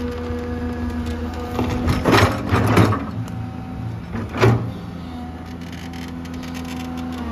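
Komatsu PC200-3 excavator's diesel engine running steadily, with two loud bursts of scraping as the steel bucket drags across dry soil: one about two seconds in, lasting about a second, and a shorter one about four and a half seconds in.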